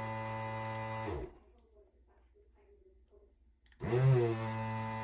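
Desoldering gun's vacuum pump running in two bursts, a steady motor hum that stops about a second in and starts again near the end. It is sucking melted solder out of the circuit board's capacitor holes.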